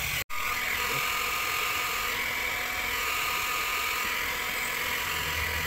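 Hot-air plastic welding gun running: its blower gives a steady whirring hiss of hot air, with a brief dropout about a quarter second in.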